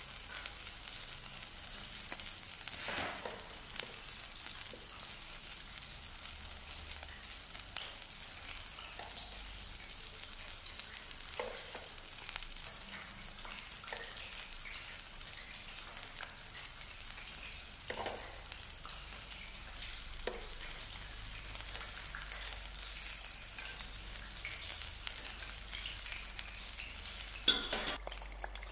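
Steady sizzle of food frying on a hot griddle, with scattered light clicks of metal tongs working on the ribbed griddle. A sharp click comes near the end.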